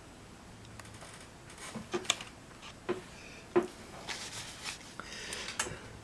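Card model pieces being handled and glued on a work surface: a few light taps and clicks, then a soft rustling scrape of card near the end.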